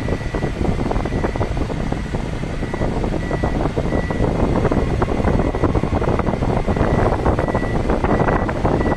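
Car driving slowly across a ship's vehicle deck, heard from inside the cabin: a steady low rumble with many small clicks. A faint high tone comes and goes.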